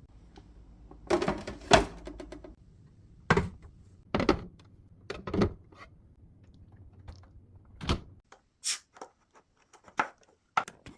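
A series of irregular sharp knocks and clicks, about nine in all, with a faint low hum underneath that stops about eight seconds in.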